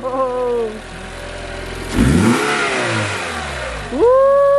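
Car's newly installed engine running after being started, revved about halfway through with its pitch falling back as it settles. Near the end a loud, long, steady high tone begins.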